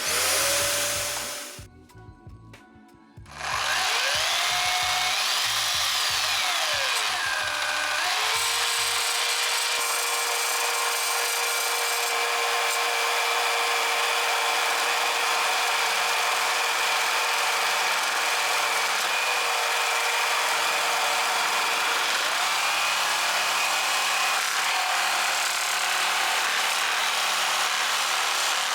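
Jigsaw mounted under a Parkside jigsaw table: the motor spins up, stops briefly, then starts again with its speed rising and falling before it settles into steady running, sawing wood.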